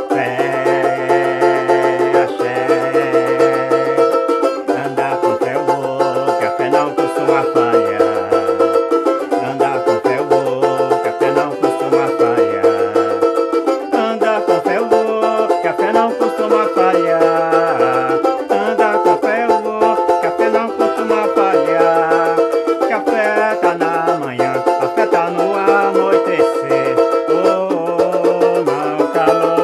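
A banjo-cavaquinho, the small four-string Brazilian banjo, strummed steadily through a song, its bright plucked chords ringing over a lower melody line that steps up and down in pitch.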